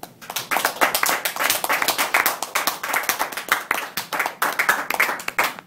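Audience applauding: many hands clapping at once, beginning immediately and going on throughout.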